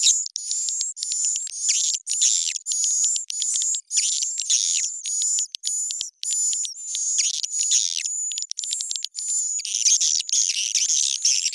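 Edited recording of edible-nest swiftlet twittering, with pitch and tempo raised, used as a lure call for swiftlet houses. It plays as short bursts of rapid, high chirps, a couple a second, each carrying a thin high whistle-like tone, separated by brief gaps.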